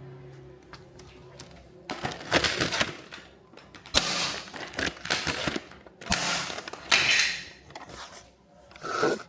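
Handling noise from plastic toys: four bursts of rustling and clattering with sharp clicks, the first about two seconds in and the last near the end.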